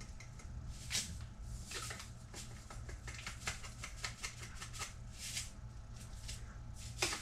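Measuring spoon scooping and scraping kosher salt, with many small clicks and taps and a few short gritty rustles of salt grains, the damp salt sticking in the spoon.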